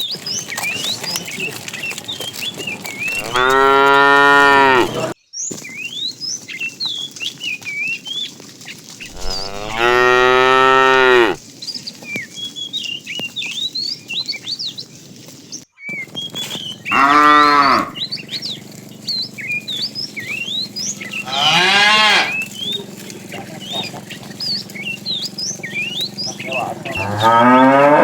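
Cows mooing, five long loud moos a few seconds apart, some falling in pitch at the end, with faint high chirping between them.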